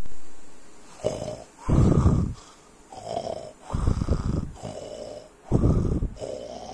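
A person snoring: three rasping snore cycles about two seconds apart, each a short breath followed by a louder, longer one.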